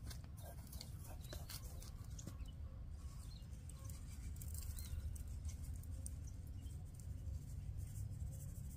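Quiet outdoor rural ambience: a steady low rumble with scattered light clicks and a few faint bird chirps.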